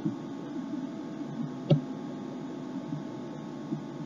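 Steady low hum and room noise, with one short sharp click about two-thirds of a second before the middle.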